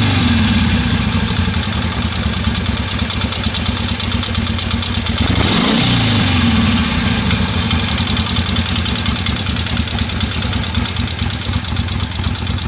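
1973 Harley-Davidson Ironhead Sportster's air-cooled V-twin running at idle with a knocking noise from the front cylinder, which the owner thinks needs a valve adjustment. The revs drop back just after the start, and it is blipped up and back down once about five to six seconds in.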